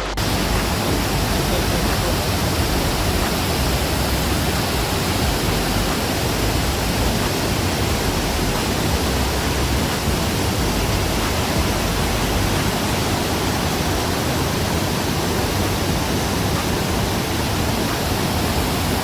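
The Rhine Falls' water pouring, a loud, steady, even rush of noise.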